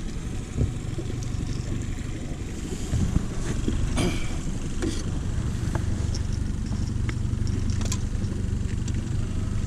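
Mercury outboard motor running steadily at low trolling speed, with a few short clicks and knocks as a walleye is handled in a landing net.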